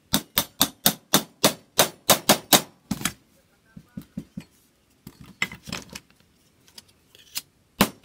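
Sharp taps of a hand tool on thin can tin over a wooden block as a rivet hole is worked. It starts with a quick run of about a dozen taps, roughly four a second, then comes a scatter of lighter knocks and two more sharp taps near the end.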